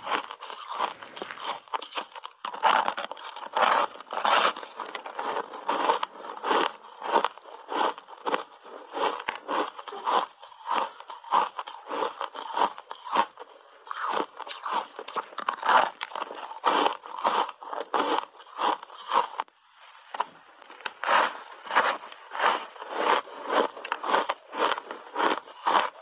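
Dry, crunchy block ice coated in matcha tea and milk powder being bitten and chewed close to the microphone: a rapid run of sharp crunches, about two or three a second, with a short pause about three-quarters of the way through.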